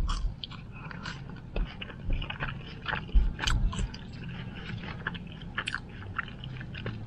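Close-up eating sounds: a person chewing mouthfuls of animal-style fries (fries topped with melted cheese and grilled onions), with irregular clicks of the mouth.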